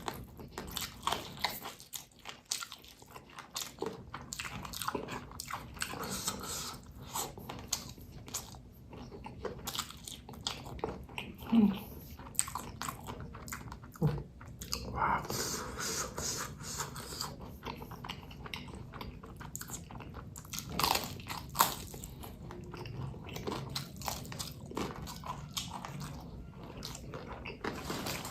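Close-miked eating: a person biting and chewing rice with cabai gendot chili sambal, with irregular wet smacks and crunches and a few louder bites.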